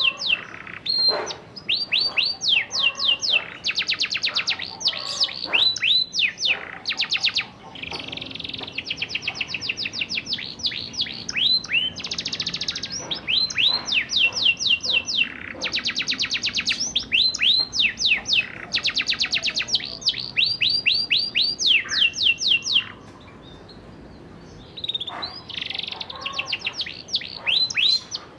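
Domestic canary singing a rolling song: fast trills of repeated falling whistled notes, one phrase straight after another, with a break of about two seconds near the end.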